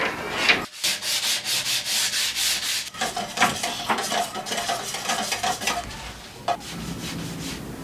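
A wooden-handled tool stirring and scraping around inside a small metal can, in quick rhythmic strokes of about four a second. From about three seconds in each stroke carries a light metallic tick, and the scraping fades out after about six seconds.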